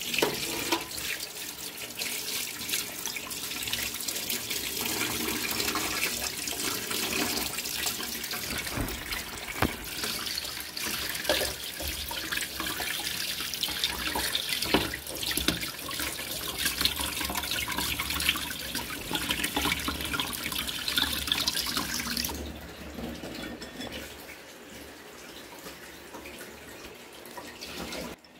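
Running water splashing onto whole dressed quail on a steel plate as they are rinsed and rubbed by hand. The splashing stops about 22 seconds in, leaving a fainter wet sound.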